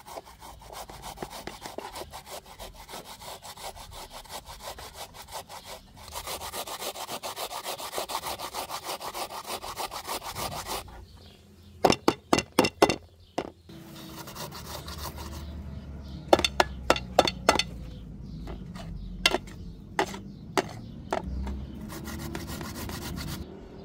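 Potato being grated by hand on a steel box grater over a metal tray: fast, even rasping strokes, louder from about six seconds in. Around the middle comes a quick run of sharp clicks, and later more scattered clicks over slower scraping.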